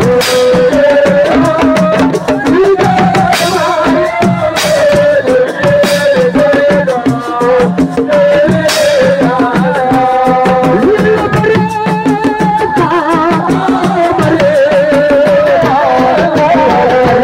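Live Senegalese assiko band playing: a wavering sung melody over a busy, driving pattern of hand drums and percussion, with several loud crashes in the first half.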